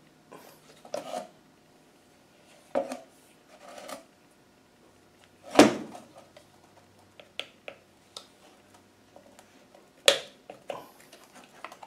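A car heater blower motor's plastic housing being handled and worked apart by hand: scattered clicks, scrapes and rustles of plastic, with three sharper knocks spread through, the loudest in the middle.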